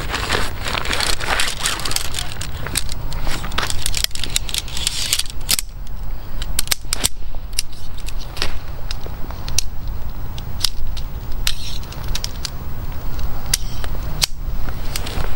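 Nylon fabric rustling and crinkling as a bivi bag is handled and pulled from its stuff sack, with many sharp crackles of dry leaves and twigs underfoot. The rustling is thickest in the first few seconds.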